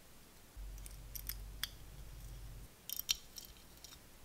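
Small metal clicks and ticks of a little hand tool and tiny parts against the metal cylinder head of a miniature model engine being assembled, in two clusters. A low rumble of handling noise runs under the first cluster.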